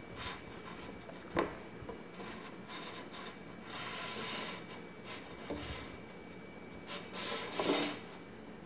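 A banana being scraped and rubbed against a ceramic plate as it is bitten and pushed around by mouth. There is a sharp knock about a second and a half in, and a louder rustling scrape near the end as the banana is lifted off the plate.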